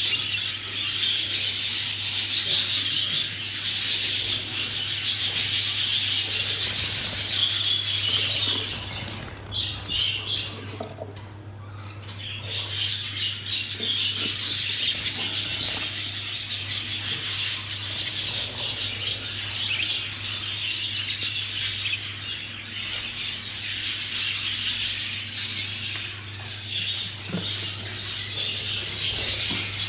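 A flock of budgerigars chattering and warbling continuously in a dense, high twitter, with a brief lull about ten seconds in.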